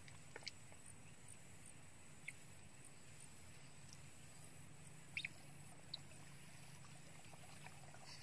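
Near silence: a faint steady low hum with a handful of brief, faint high chirps or clicks.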